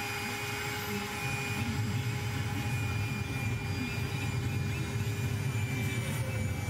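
Portable electric air pump running steadily as it inflates an air mattress: a constant motor whine over a rushing hiss, with a deeper rumble that grows about a second in.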